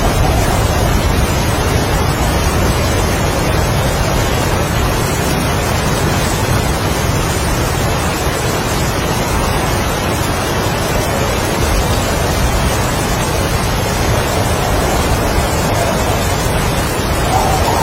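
Heavy rain with strong wind, a dense steady rush of noise; a gust of wind swells near the end.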